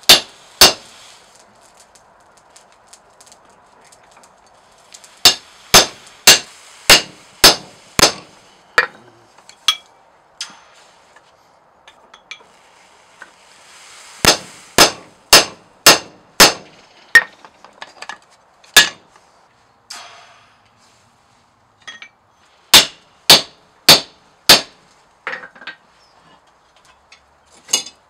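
Hammer blows on a hot punch and slitting chisel being driven into red-hot leaf-spring steel on an anvil, punching the eye of an axe head. Sharp ringing clangs in runs of four to nine strikes, about two a second, with pauses between the runs and a few lighter taps near the end.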